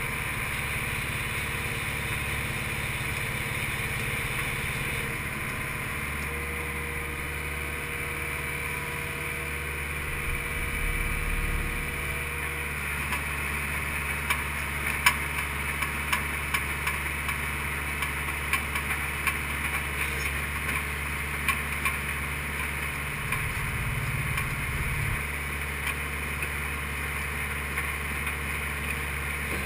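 Skid steer engine running steadily while its hydraulic auger attachment bores a hole for a bollard. The engine note changes about six seconds in, and again briefly near the end. Scattered clicks and knocks fill the second half.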